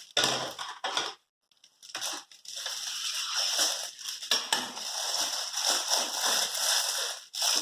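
Plastic packaging being handled and opened around an ice-cream-shaped pop-it fidget toy: dense crackling and crinkling with a few sharper clicks. There is a brief pause about a second in.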